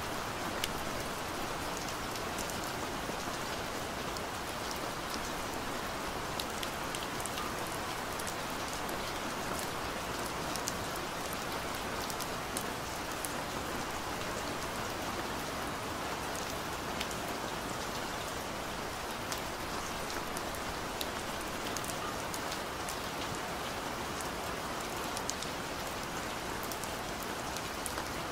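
Steady rain falling: an even hiss with many small sharp drop ticks scattered through it.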